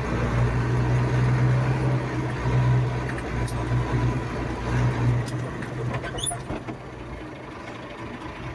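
Tractor engine running steadily, then dropping away and getting quieter a little over halfway through.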